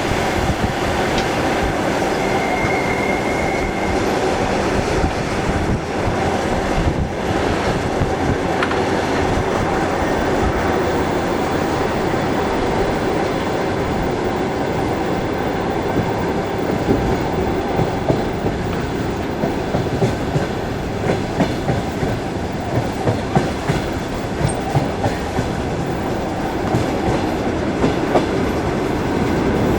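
Passenger train wheels rumbling over the track, with the rhythmic clickety-clack of the rail joints growing distinct past the middle.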